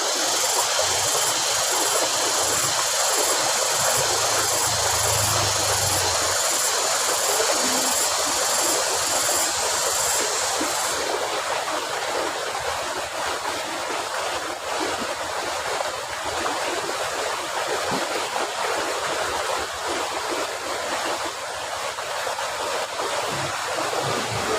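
Water rushing steadily through an irrigation channel, with a high hiss on top that cuts off about eleven seconds in.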